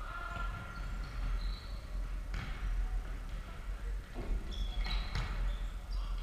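Futsal ball being kicked or bouncing on a wooden sports-hall floor, two sharp knocks about two and a half and five seconds in, echoing in the hall. Short high shoe squeaks are heard between them.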